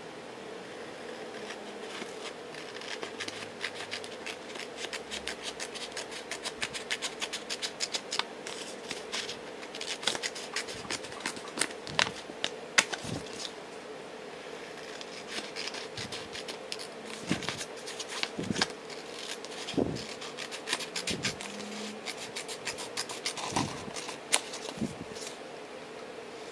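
Small scissors snipping through a printed sticker sheet: many short, sharp cutting snips, in quick runs in the first half and more spaced out later. A steady low hum runs underneath.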